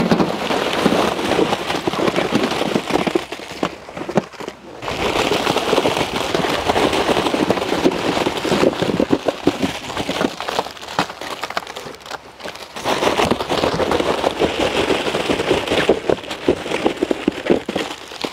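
Dozens of plastic-wrapped Oreo biscuit packets tumbling out of cardboard boxes onto a large aluminium platter and onto each other: a dense run of crinkling and clattering. It comes in three long pours, with short breaks about four seconds in and about twelve seconds in.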